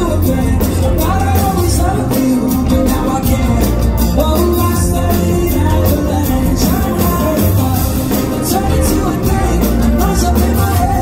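Live pop-rock band playing with a male lead vocal: drums with a steady run of cymbal hits, heavy bass, and singing over them.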